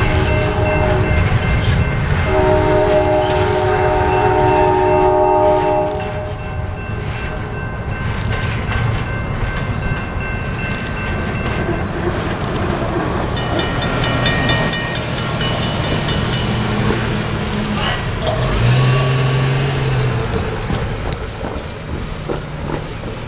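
Double-stack intermodal freight train rumbling over the crossing, with a locomotive horn sounding from about two to six seconds in; the rumble drops off as the train clears. The crossing's bells keep ringing until about halfway through, when the gates go up, and a car drives over the tracks near the end.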